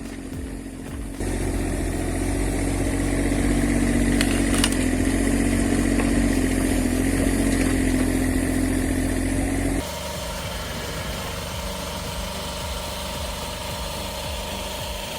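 Engine of heavy wood-processing machinery running steadily. It gets louder about a second in and switches abruptly to a quieter, different machine sound near ten seconds.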